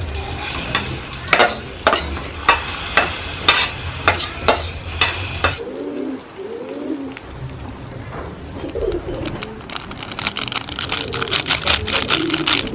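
A metal spatula knocks and scrapes against a wok and the rim of an aluminium pot about twice a second for the first five seconds or so, scraping sautéed spices into the soup. Then doves coo several times, with a fast crackle near the end.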